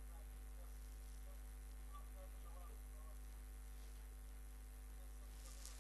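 Steady electrical hum with faint hiss, the background noise of the recording, with a short faint click near the end.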